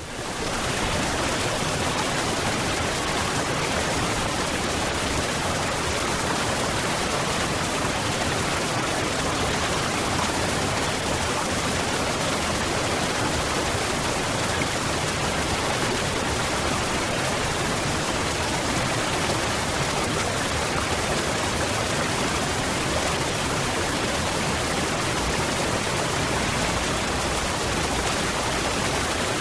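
Waterfall: water falling in a steady, even rush, rising out of silence at the very start and then unchanging.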